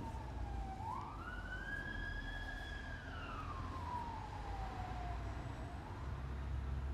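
Emergency-vehicle siren in a slow wail: the pitch rises, holds high, then falls slowly over about five seconds, and starts rising again near the end. Under it runs the steady low rumble of the vehicle's engine and road noise.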